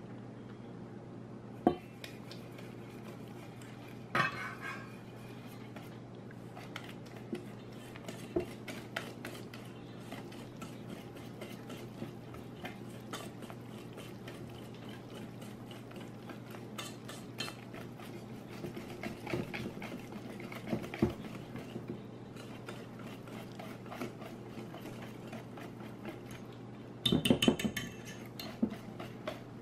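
Wire whisk beating cornbread batter in a stainless steel mixing bowl, its wires clicking and scraping against the metal. A few sharp clinks come early on, and there is a louder burst of clattering near the end.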